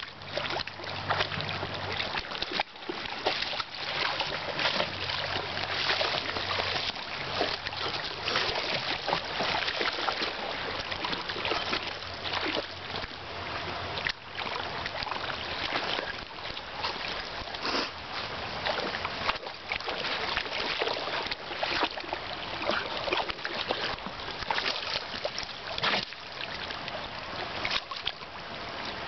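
Water splashing and sloshing as a Siberian husky wades and paws through a shallow river, with many quick irregular splashes over running water.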